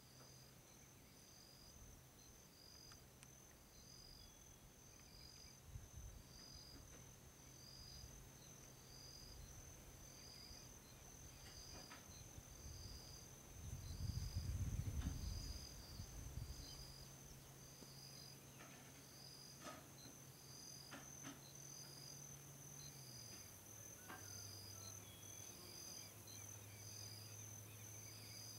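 Faint insects calling in rural pasture: a steady high-pitched shrill with a second high chirp repeating about once a second. A low steady hum runs underneath and dips in pitch past two-thirds in, and a brief low rumble about halfway through is the loudest sound.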